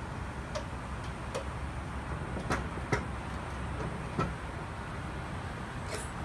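About six irregular sharp knocks over a steady low rumble; the loudest come around the middle.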